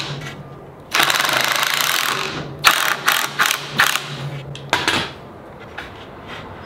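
Cordless drill driving a screw up through a plywood sled base into a wooden fence: one longer run, then a string of short blips, and a last short run about five seconds in.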